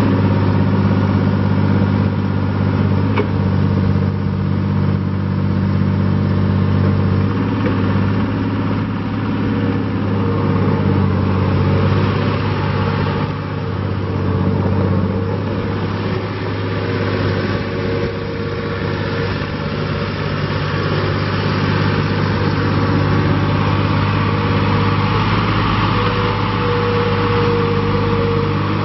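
2012 Vermeer RT450 4WD trencher's diesel engine running steadily while the machine drives and turns on gravel. A higher whine comes in near the end.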